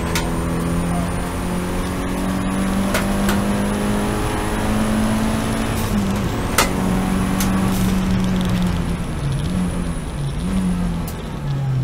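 Seat Leon race car's engine under load at racing speed, heard from on board: it holds high revs, dips briefly about six seconds in, wavers down and up near the end, then drops to lower revs as the car slows. A few sharp clicks and knocks cut through now and then.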